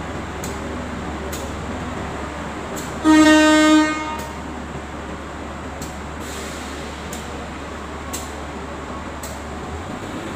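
Train horn giving one short, steady blast of just under a second, over a steady low hum of the station.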